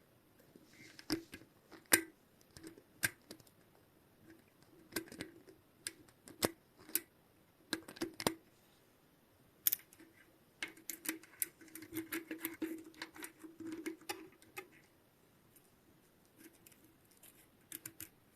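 Irregular clicks, taps and light knocks of tools and small metal parts of a bicycle freehub being handled, with a longer stretch of rubbing and scraping from about 11 to 15 seconds in.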